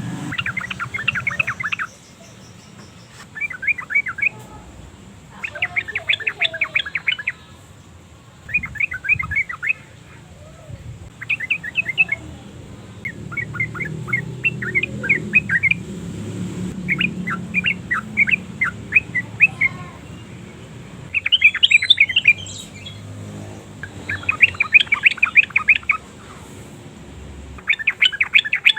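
Yellow-vented bulbul chattering in short bursts of rapid, repeated notes, about ten bursts with brief pauses between them.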